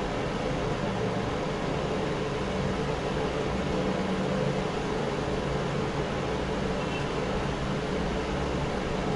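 Mondial A-08 electric fan heater running: a steady rush of blown air with a low motor hum underneath.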